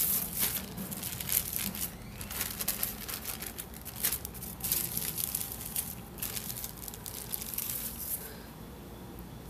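Thin plastic sheets crinkling and rustling as they are peeled off a freshly pressed corn-masa tortilla and laid back flat. The crackling is irregular and dies away about eight seconds in.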